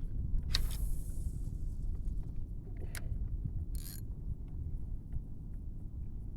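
Ambient noise of a kayak out on open salt water: a steady low rumble, broken by a few short, sharp noises about half a second, three and four seconds in.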